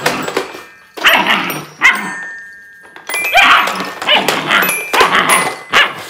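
German Shepherd puppy barking repeatedly in short bursts, while the metal bars of a toy xylophone ring now and then as the puppy noses them, clearest about two seconds in.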